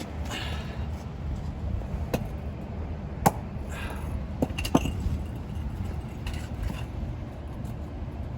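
Steady low rumble, likely the burner of a copper-melting furnace, with a few sharp metallic clinks from about two to five seconds in, the loudest near the middle, as the crucible and ingot molds are handled.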